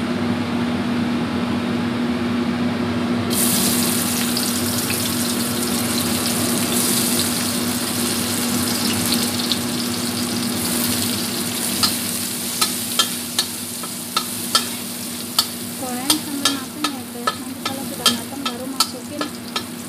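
Sliced garlic and shallots hit hot oil in a steel wok and start sizzling about three seconds in, the sizzle going on steadily. From about halfway on, a metal spatula clicks and scrapes against the wok in quick repeated strokes as they are stirred, over a steady low hum.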